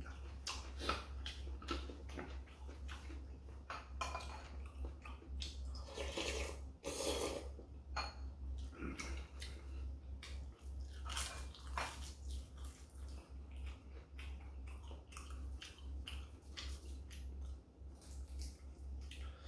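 A person eating: irregular chewing and mouth sounds, with light taps and clicks of chopsticks against bowls and dishes, over a steady low hum.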